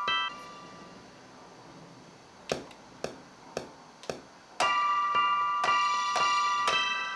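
Electric-piano keys on a beat being played from a pad controller: repeated notes that stop just after the start. After a pause, four evenly spaced clicks at the beat's tempo, then the keys come back in with fuller chords, about two a second.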